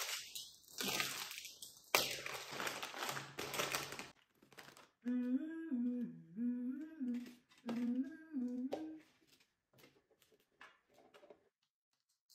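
A plastic snack packet rustling and crinkling as it is torn open, then a person humming a short stepwise tune for about four seconds. A few light taps follow near the end.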